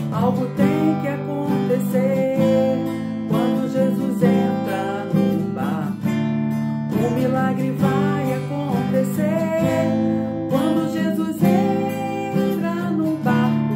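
Acoustic guitar strummed through a chord progression, with strokes about once a second. Sustained chords sit underneath and a gliding melody line runs over the top.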